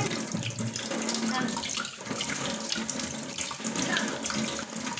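Kitchen tap running, its water splashing over hands as they are rubbed and rinsed under the stream.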